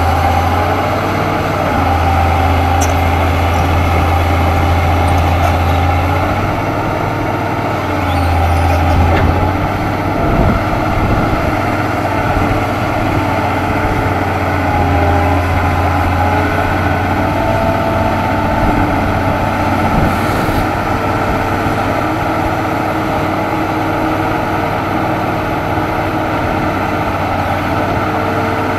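Hitachi Zaxis hydraulic excavator's diesel engine running steadily under working load as the machine digs. Its low drone swells and eases as the load changes.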